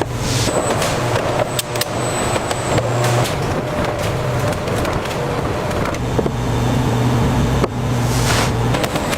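Factory processing machinery running with a steady low hum and scattered clattering clicks, broken by a few abrupt cuts.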